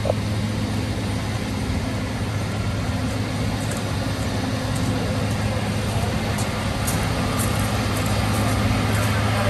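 Cog railway locomotive running slowly with its coach: a steady low engine hum, with light clicking from the running gear in the second half.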